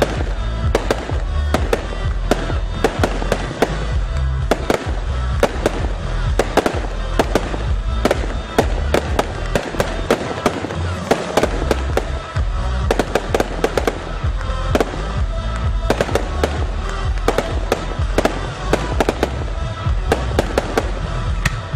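Aerial firework shells bursting in quick succession, several sharp bangs a second, over loud music with a heavy bass.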